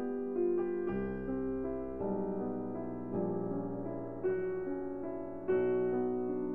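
Background piano music, a melody of single notes and chords played at a steady, moderate pace.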